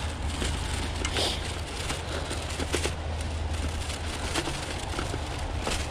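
Bicycle tyres rolling and crunching over thin snow and dry leaves on a rough trail, with scattered clicks and rattles and a steady low rumble of wind on the microphone.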